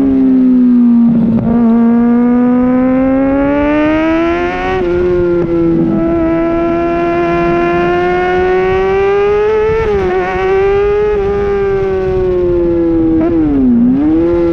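Kawasaki Ninja ZX-6R's inline-four engine running at high revs under way, its pitch climbing slowly and steadily. It dips briefly about ten seconds in, and dips sharply and comes back up near the end, as the throttle is eased and reopened.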